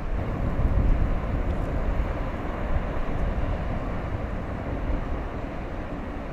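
Steady low rumble and rushing water from a passing bulk carrier: its Akasaka six-cylinder two-stroke diesel and the propeller churning its wash, slowly fading.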